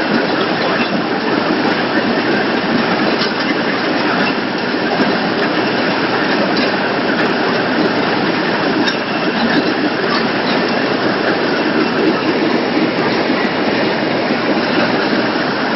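Automatic poultry slaughter line machinery running, a steady, dense clatter and rattle with scattered sharp clicks throughout.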